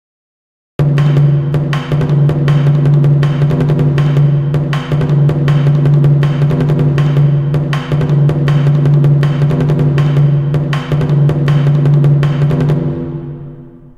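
Music: a drum-led instrumental passage with a steady beat of drum hits over held low notes. It starts abruptly about a second in and fades out near the end.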